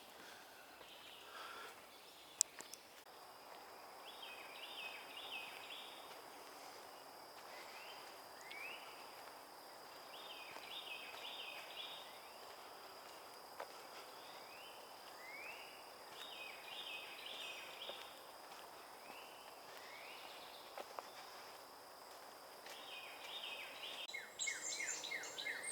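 Songbirds singing in woodland: a short phrase of quick notes repeated every five or six seconds, with single rising calls in between, over a steady thin high-pitched tone and outdoor hiss. There is one sharp click about two seconds in.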